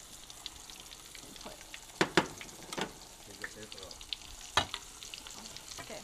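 Onion rings frying in hot oil in a metal pan, a steady sizzle with small crackles. A metal utensil knocks against the pan four times, first twice in quick succession about two seconds in.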